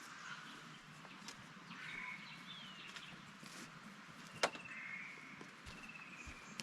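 Birds calling in the forest: several short whistled notes and a falling whistle over a steady background hiss, with one sharp click about four and a half seconds in.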